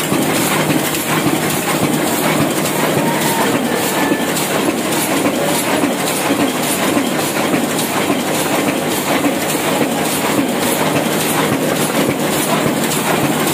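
An old Hashimoto sheet-fed offset printing press running, a steady mechanical clatter with a regular beat a few times a second from its rollers and sheet transport.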